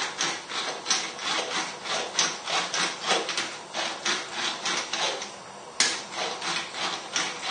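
Hand-twisted salt and pepper mill grinding seasoning: a quick run of gritty rasping strokes, about four a second. The strokes pause briefly, there is a sharp click about six seconds in, and the grinding starts again.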